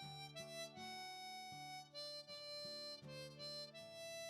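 Quiet background music: a melody of held notes over a low bass line.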